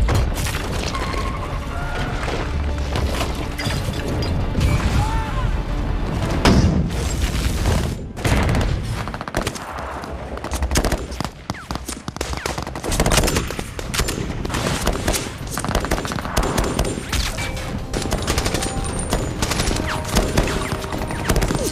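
Movie battle soundtrack: heavy automatic gunfire and rapid shots throughout, opening on an explosion, with film score underneath.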